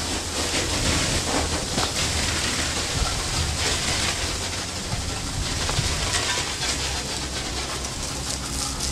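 Hand-held fire extinguisher discharging: a steady hiss of the spray jet.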